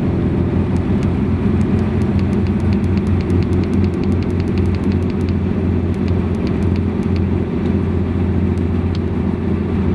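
Diesel engine of a refrigerated truck running steadily at idle, a constant low hum with faint rapid ticking over it.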